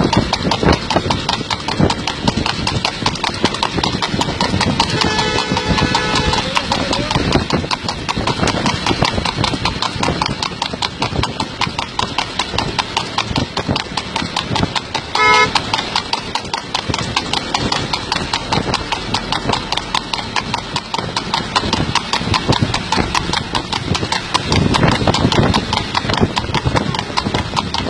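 Hooves of a horse pulling a light racing cart at speed on a paved road, a fast, steady clip-clop, with motorcycle engines running alongside. A vehicle horn sounds about five seconds in and briefly again about halfway through.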